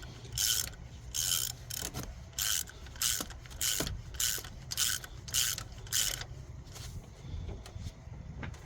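Hand ratchet wrench clicking in repeated back-and-forth strokes, about two a second, running down a cylinder head bolt; the strokes thin out near the end.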